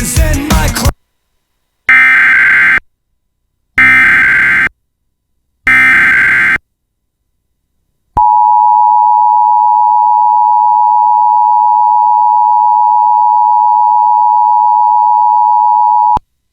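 Emergency Alert System alert opening with three roughly one-second bursts of SAME digital header data screeching, then a pause, then the two-tone EAS attention signal held steady for about eight seconds before it cuts off. It heralds a fire warning.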